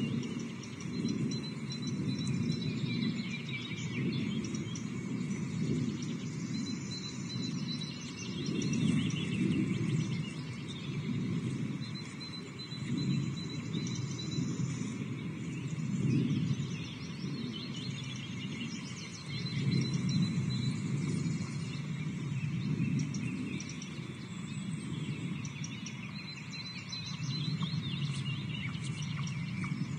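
Wind buffeting an outdoor nest-camera microphone in gusts, with birds calling in the background in short repeated high phrases.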